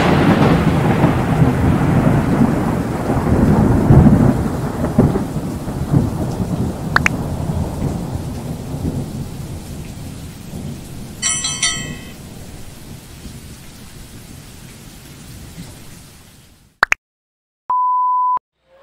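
Intro sound effect: a thunder-like rumble with a rain-like hiss that slowly fades away over about sixteen seconds, with a short run of high blips about eleven seconds in. It ends in silence, a click and a short steady beep.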